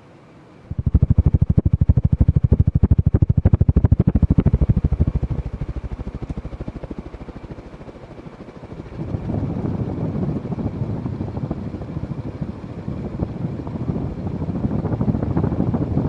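Evergo ceiling fan running, its four blades beating the air in a fast, even pulsing that starts abruptly about a second in and eases off after about five seconds. From about nine seconds it becomes a rougher, louder rush of moving air.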